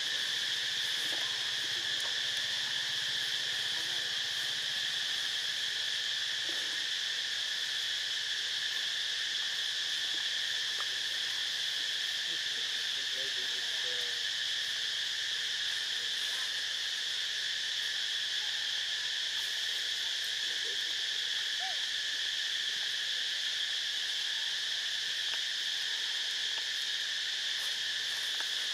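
A chorus of insects in a steady, unbroken high-pitched drone.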